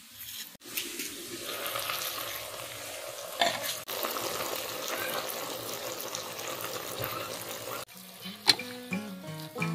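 Squash blossoms and vegetables cooking in a black clay pot, a steady sizzling hiss. Music with plucked-sounding notes comes in near the end.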